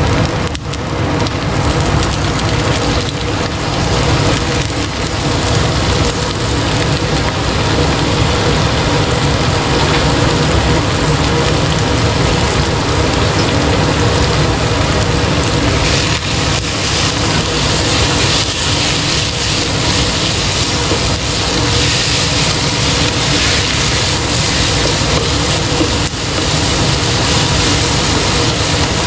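Minced beef sizzling steadily as it fries in hot oil, with a few brief knocks.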